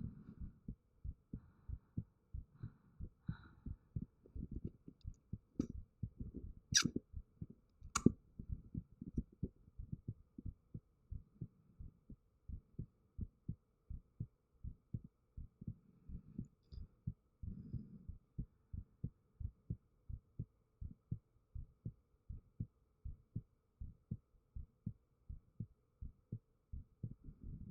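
A person's heartbeat picked up close on a 3Dio binaural microphone: steady, even low thumps. Two sharp clicks, a little over a second apart, sound about a quarter of the way in.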